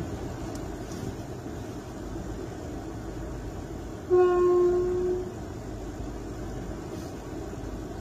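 A horn sounds one steady single-note blast of a little over a second, about four seconds in, over a steady low rumble.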